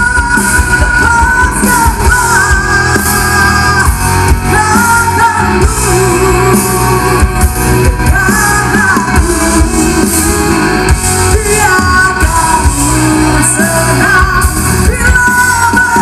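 Indonesian rock band playing live with a singer, heard loud through a large concert PA from within the crowd.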